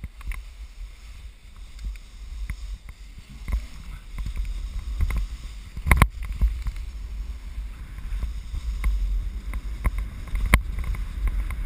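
Skis swishing and scraping through slushy spring snow on a run of turns, with wind buffeting the microphone as a low rumble. There are scattered short clacks, with two sharp knocks about six seconds in and again near the end.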